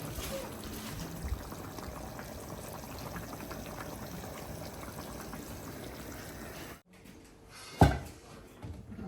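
Pot of fish curry bubbling and sizzling steadily on the stove. The sound cuts off abruptly about seven seconds in, followed by a single loud thump about a second later.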